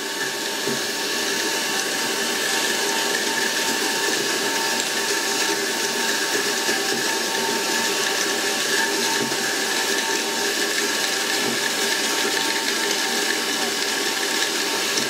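Electric home flour mill running steadily and grinding the last dried maize kernels as they drain from its steel hopper: a constant motor whine over the rattle of grain being milled. The load is nearly gone, and the running sound changes once the hopper is fully empty.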